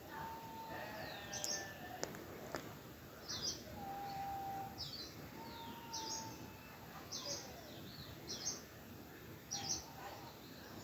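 Faint bird chirping: short high calls about once a second, some sliding down in pitch, with a few longer whistled notes, over a soft rustle of cloth being unfolded.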